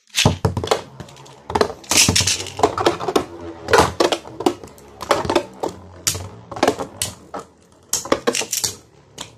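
A metal Beyblade Zero-G top and a plastic Beyblade Burst top spinning in a plastic stadium, clacking against each other in repeated, irregular hits over a low steady hum.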